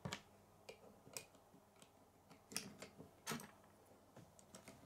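Irregular light clicks and taps of K'nex plastic pieces being handled and snapped together, a wheel being fitted onto an axle.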